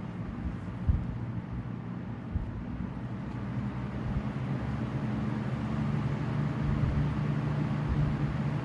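Two Lasko-built 20-inch box fans running: a steady motor hum under the rush of moving air, gradually getting louder. A couple of brief low thumps in the first few seconds.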